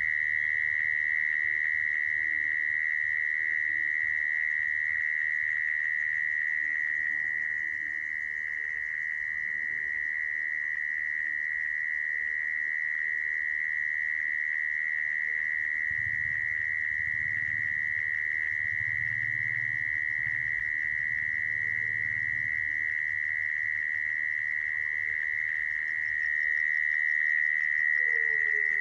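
Mole cricket singing: one continuous high-pitched trill held at a steady pitch without a break, the call used as a lure to trap mole crickets.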